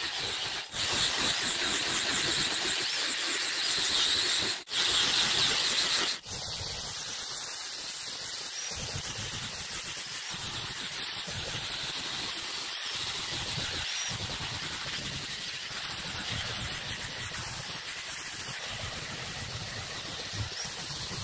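Compressed-air spray gun spraying a wooden boat hull: a steady, high-pitched hiss, louder in the first few seconds and cut off briefly three times, then running on a little softer.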